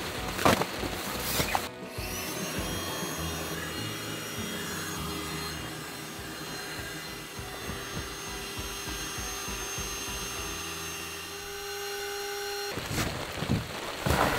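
Small electric motor spinning up about two seconds in, then running with a steady whine, and cutting off suddenly near the end.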